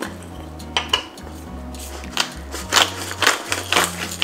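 A hand-twisted stainless salt grinder grinding salt: a couple of clicks about a second in, then a run of gritty grinding strokes, about two a second, through the second half. Background music with a slow bass line plays underneath.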